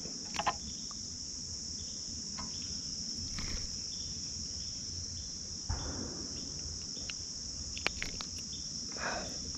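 A steady, high-pitched chorus of insects, with a few faint knocks and rustles of handling over it.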